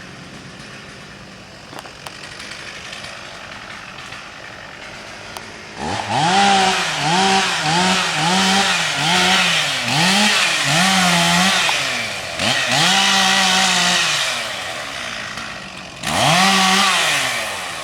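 Chainsaw starting up about six seconds in and revved up and down over and over, each rev under a second, with a longer steady run in the middle and another burst near the end.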